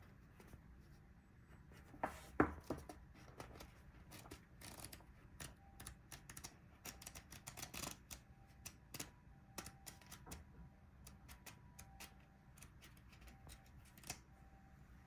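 Pages of a small paperback booklet being handled and flicked through: a string of soft paper flicks and rustles, densest in the middle, with a louder knock about two and a half seconds in.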